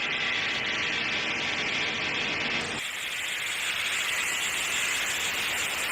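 Steady hiss of static-like noise, strongest in the upper range. About three seconds in, its lower part drops away, leaving a thinner hiss.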